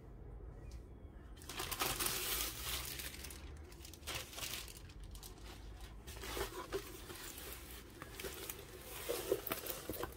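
Clear plastic sleeve crinkling and rustling as a rolled diamond-painting canvas is slid out of it and unrolled, starting about a second and a half in and swelling several times.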